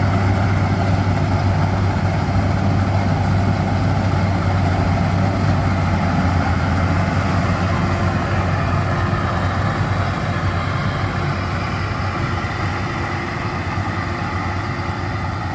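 Rice combine harvester's diesel engine and threshing machinery running steadily with a deep, even hum.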